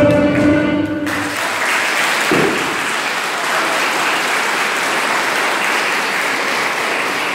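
Folk dance music stops abruptly about a second in, and an audience applauds steadily for the rest.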